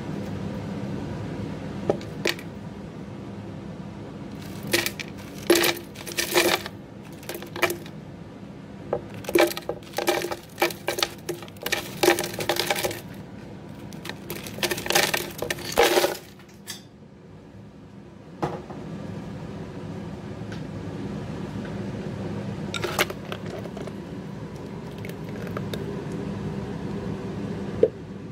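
Ice cubes dropping and clattering into a blender jar: a run of sharp clinks lasting about ten seconds, then a few more later, over a steady low hum.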